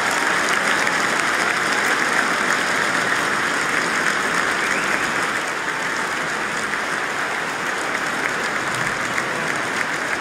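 Large crowd applauding: dense, steady clapping of many hands that eases off slightly about halfway through.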